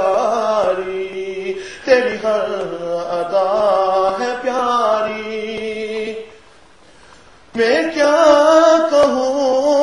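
A man's voice chanting an Urdu naat in long, wavering, ornamented notes. The singing breaks off for about a second and a half past the middle, then resumes.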